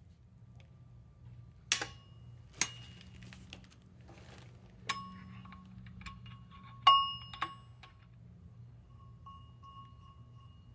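Steel breaker bar and locking bolts knocking against a Porsche 944 flywheel as the crank-locking setup is taken apart. There are five sharp metal clinks, each leaving a bell-like ring, and the loudest comes about seven seconds in.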